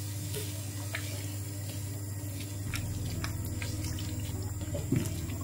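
Coconut milk and chickpeas being stirred in a hot frying pan with a silicone spatula: a wet, sloshing simmer with a few light clicks of the spatula against the pan, over a steady low hum.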